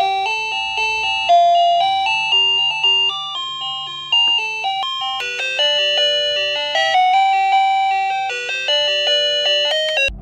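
Pecham wireless doorbell receiver playing one of its electronic chime tunes through its speaker, stepped back to the previous of its 55 chimes: a bright melody of many short notes that ends near the close.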